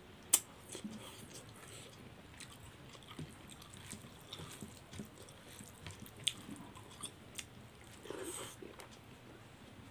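Mouth sounds of a person eating rice and curry by hand, picked up by a clip-on microphone: chewing and wet lip smacks with scattered sharp clicks. The loudest click comes just after the start.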